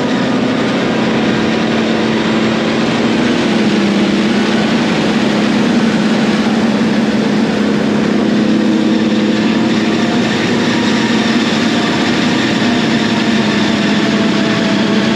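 Self-propelled forage harvester running under load while chopping standing corn: a steady engine drone over the rushing noise of the crop going through the machine, with a slight shift in engine pitch about three seconds in.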